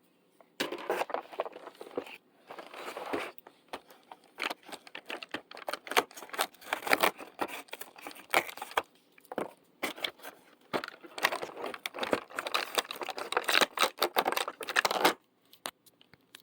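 Plastic crinkling and irregular clicking, on and off, as a plastic packet is opened and a plastic pop tube fidget toy is handled.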